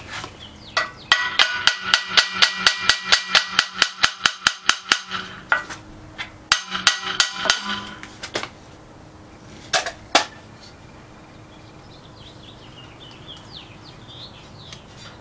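Small hammer tapping on the water pump of a Willys 4-134 engine to knock it loose from the block. It starts with a fast run of ringing metal taps, about five a second for some four seconds. Shorter bursts and a few single blows follow.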